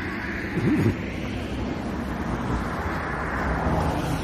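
Outdoor road ambience: wind on the microphone and passing traffic, with a brief louder sound under a second in.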